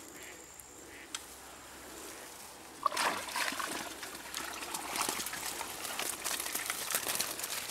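A fishing keepnet being hauled out of a lake. From about three seconds in, water streams and splashes out through the mesh.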